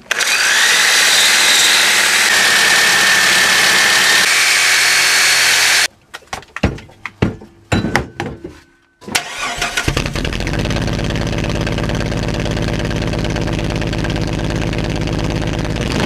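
Reciprocating saw cutting through the steel exhaust pipe, with a high whine over the noise, for about six seconds. A few metallic clanks follow. Then the Jeep's 4.0 straight-six starts at about nine and a half seconds and runs rough, exhausting through the open pipe where the catalytic converter has been cut out.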